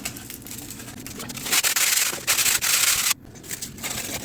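60-grit sandpaper scraping over cured PC-Woody wood epoxy filler. The sanding is a rough, scratchy hiss that grows louder about a second and a half in and breaks off sharply about three seconds in.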